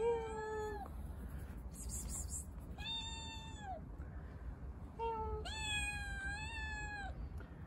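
Black-and-white longhaired kitten meowing four times, each a clear pitched call; the last is the longest, about a second and a half.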